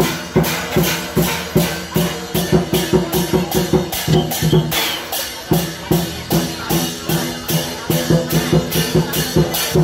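Procession percussion band: drums and clashing cymbals beating a fast, steady rhythm of about four strikes a second over repeated low ringing notes.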